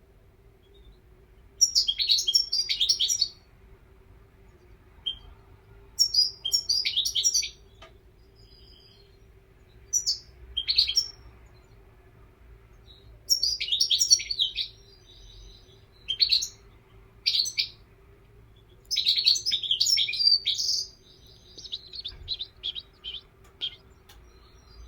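European goldfinch singing: bursts of quick twittering song every few seconds, ending in a run of short separate notes.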